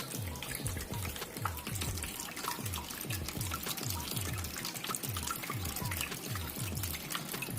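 Water trickling and splashing down a small terracotta-pot waterfall fountain, with lots of small drips, over background music with a steady low beat.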